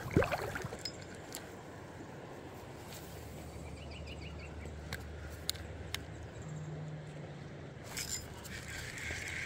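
Faint steady low background noise with a few small sharp clicks and a short run of quick ticking from a spinning reel being handled and cranked.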